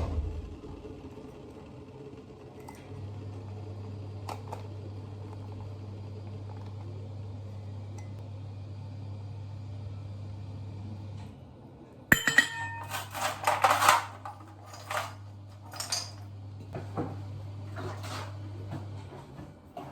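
A kitchen appliance hums steadily, stopping briefly and starting again. In the second half, glassware and cutlery clink and clatter in a quick cluster of knocks.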